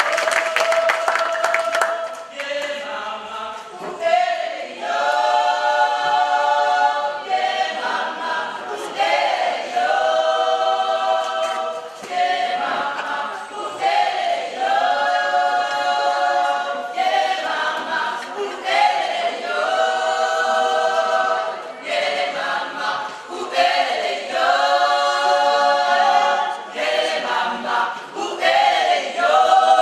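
Gospel choir singing in several voices, in held chords that come in phrases about two seconds long. Applause fades out in the first couple of seconds as the singing starts.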